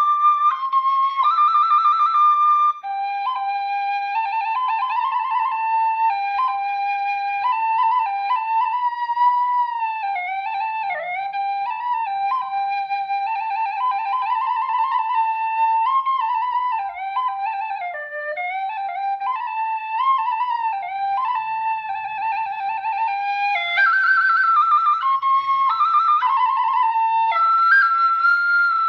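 Khloy, the Cambodian bamboo duct flute, playing a slow solo melody with vibrato, moving up into a higher register about 24 seconds in.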